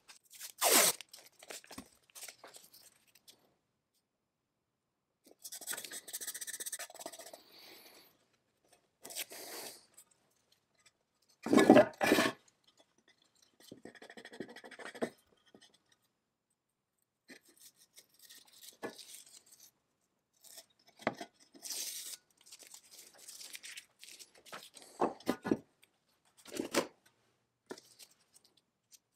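Intermittent hand work on chainsaw parts: scrapes, rubbing and clicks in separate bursts with silent gaps, the loudest a short rush about twelve seconds in.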